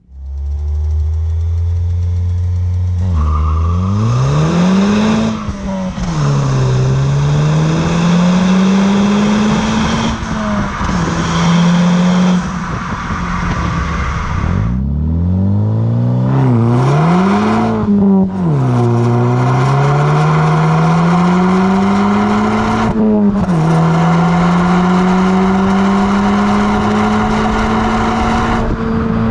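Volkswagen MK6 GTI's turbocharged 2.0-litre four-cylinder engine and aftermarket-style exhaust under hard acceleration through several gears. The pitch climbs, then drops at each shift, and it settles into a steady cruise for the last few seconds.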